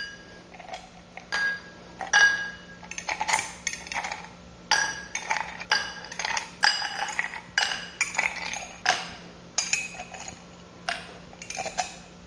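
Ice cubes spooned one at a time into a tall glass with a metal spoon: a long, irregular series of sharp clinks, many ringing briefly.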